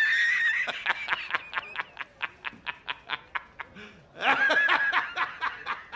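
A man laughing hard in a high-pitched cackle: a held squeal, then a long run of quick laughs at about five a second, rising to a second squealing peak about four seconds in.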